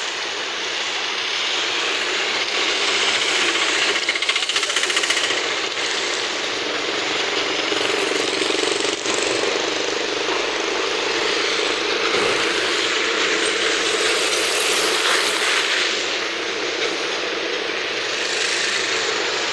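Heavy rain falling: a loud, steady, dense hiss with no break.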